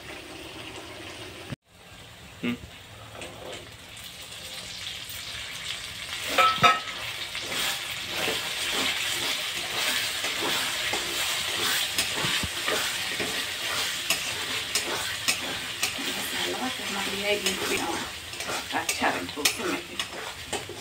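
Spice masala frying and sizzling in oil in a steel kadai while a spoon stirs and scrapes against the pan. The sizzle builds over the first few seconds and then holds steady, with a couple of sharp knocks about six seconds in.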